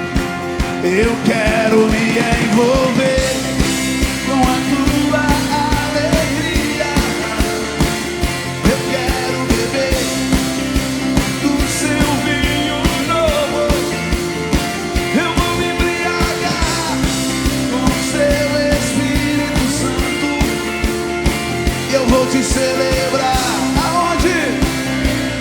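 Worship band music with a steady drum beat, sustained chords and a voice singing a melody.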